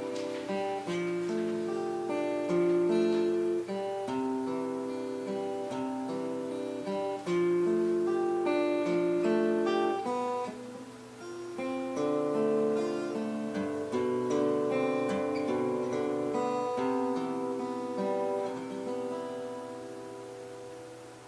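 Acoustic guitar playing slow chords, dying away near the end.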